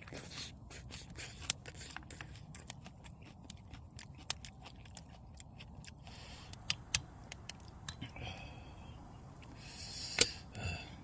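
Close-up eating sounds: crunchy biting and chewing, with rapid sharp crackles through the first half. Sparser clicks and scraping follow, with one loud click near the end.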